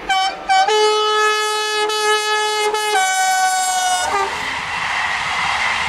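Electric locomotive's horn: two short blasts, then a long blast of about three and a half seconds, two notes sounding together before the lower one stops for the last second. Then the steady rolling noise of the passenger coaches passing close by.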